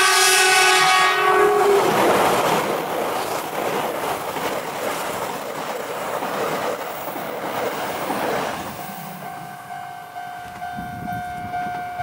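E6 series Super Komachi shinkansen sounding its horn for about two seconds, then passing close by with heavy wheel-on-rail noise and clatter over the rail joints that slowly fades. Once the train noise thins, after about eight seconds, the steady tone of the level-crossing warning bell comes through again.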